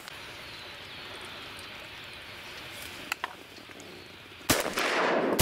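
Faint steady marsh ambience, then two shotgun shots just under a second apart near the end.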